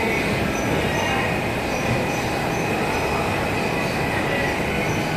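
Oil-press machinery running: a steady, loud mechanical din with a faint high squeal recurring about every two-thirds of a second.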